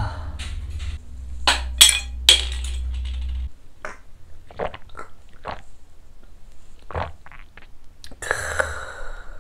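A few sharp clinks of a glass soju shot glass over a low hum that cuts off suddenly about three and a half seconds in. Then come soft mouth clicks as the soju is sipped and swallowed, and a breathy exhale near the end.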